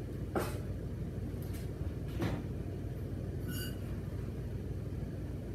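Steady low room hum, with three light taps and one short high-pitched squeak about three and a half seconds in.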